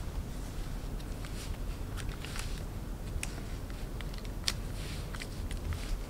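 Faint handling noise of a patent platform sandal being slipped onto a foot: light scattered clicks and rustles of its straps and metal buckles, with one sharper click about four and a half seconds in, over a low steady hum.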